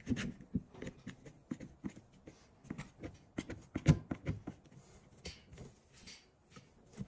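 One-handed bar clamps being squeezed tight against a board, clamping a wooden strip onto the base of a push stick: a run of irregular clicks and knocks, the loudest about four seconds in.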